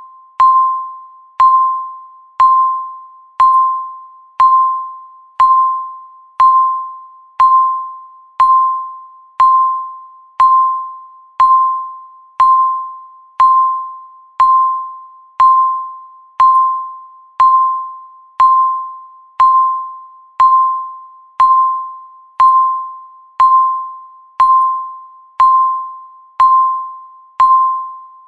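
Countdown timer beeping once a second: a single clear electronic tone that starts sharply and fades away before the next, one beep for each second left in the count.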